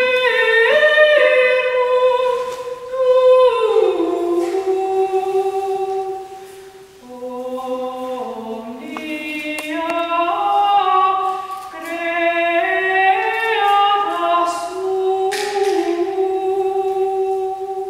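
Unaccompanied choir of women's voices singing slow, held notes in several parts that move step by step together, softening briefly about a third of the way through before swelling again.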